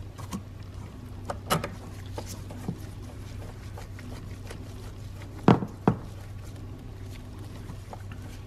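Small clicks and taps of a hand driver on the mass airflow sensor's screws as they are started and run in, with two louder sharp knocks about halfway through, over a steady low hum.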